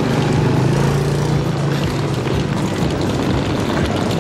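A motor scooter passes close by, its engine hum swelling about a second in and fading away after about two seconds, over steady street traffic noise.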